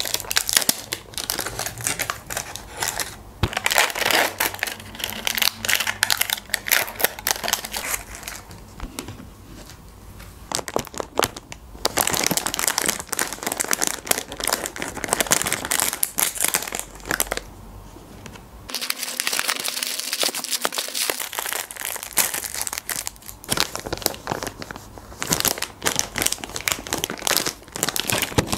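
Crinkly plastic sweet wrappers and snack bags being crumpled and torn open, in bunches of rustling and crackling with a few quieter stretches between.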